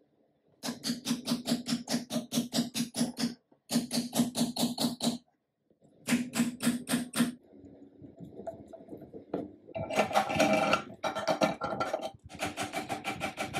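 Quick, even metallic clicking in three bursts of one to three seconds, as an antique sewing machine shaft and its bushing are worked by hand. From about ten seconds in, metal parts scrape and knock as they are fitted into the machine's arm.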